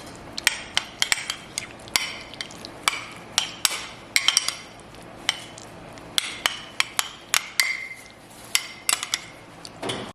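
A spoon stirring a sauce in a bowl, clinking against the bowl in many quick, irregular taps.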